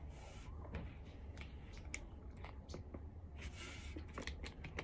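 Faint sounds of drinking water in sips from a thin plastic water bottle: soft swallows and scattered small clicks and crinkles of the plastic, with two short soft hisses.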